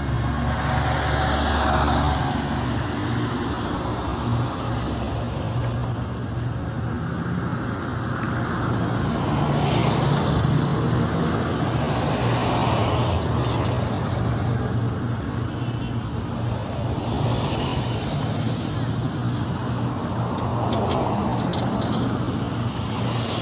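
Road traffic noise: a steady low vehicle-engine hum with a wash of traffic sound that swells and fades several times.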